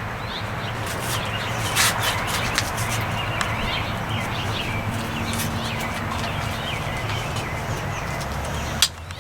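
Drop-leg holster straps and buckles being handled and fastened: a few sharp clicks and rustles over a steady low hum, with one louder click near the end. Small birds chirp faintly in the background.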